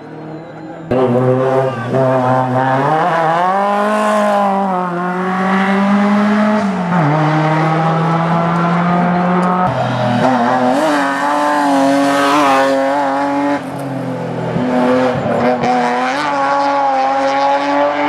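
Rally car engine running at high revs on a hill-climb course. The pitch rises and falls as it accelerates and lifts through the bends, with sudden drops as it changes gear. The sound comes in loudly about a second in and breaks off briefly past the middle.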